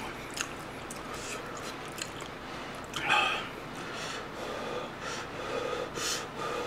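Close-miked eating sounds: a person chewing a mouthful of chicken soup with rice, with noisy breaths through the nose. One short, louder noise comes about three seconds in.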